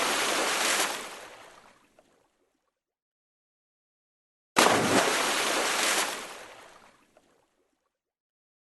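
Water splash: one splash fades away at the start. After a few seconds of dead silence, another starts suddenly, holds for about a second and a half, then dies away.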